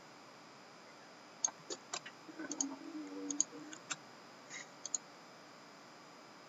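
About a dozen scattered, faint clicks of a computer mouse and keyboard, irregular and a fraction of a second apart, with a short low hum from a voice partway through.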